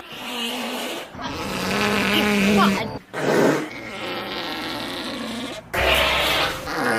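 A man's long, buzzy farts, several of them in quick succession and cut together.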